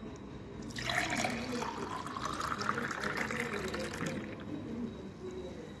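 Milky isabgol drink poured from a clay pot into a glass tumbler, starting just under a second in and lasting about three seconds. The pouring sound rises steadily in pitch as the glass fills.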